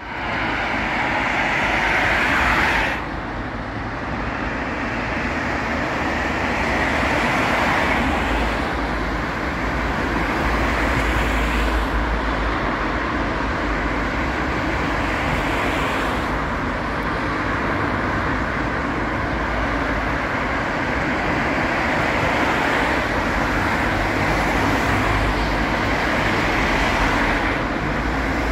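Road traffic: a steady wash of car tyre and engine noise, swelling and easing as cars pass one after another.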